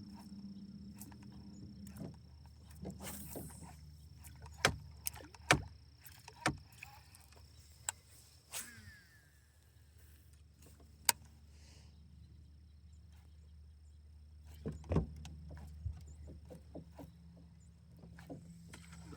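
Sounds of anglers in a small fishing boat: a steady low hum with a faint high whine, broken by several sharp knocks and clicks of gear against the boat.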